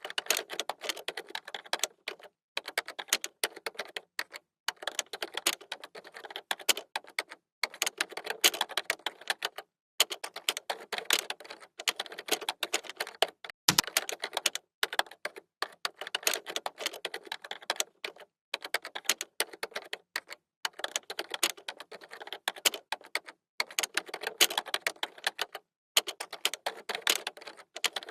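Computer keyboard being typed on: fast runs of keystroke clicks, broken by brief pauses every two or three seconds.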